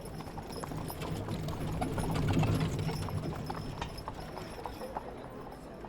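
Horse hooves clip-clopping with the rumble of a horse-drawn coach's wheels. The sound grows louder to a peak about halfway through, then fades as the coach passes.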